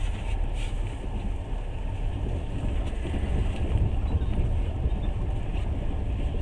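Passenger train running at speed, heard from inside the carriage: a steady low rumble of wheels on rails with a fainter hiss above it.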